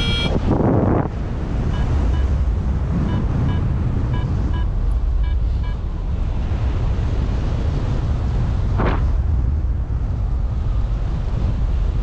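Airflow buffeting the helmet- or harness-mounted GoPro microphone in flight, a steady low rumble with stronger gusts near the start and about nine seconds in. From about two to six seconds in come short beeps in pairs, typical of a paragliding variometer signalling lift.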